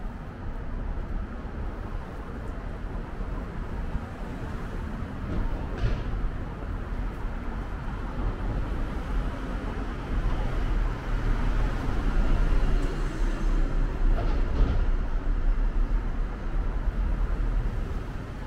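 Street traffic noise with a steady low rumble, swelling louder for several seconds past the middle of the stretch and then easing off.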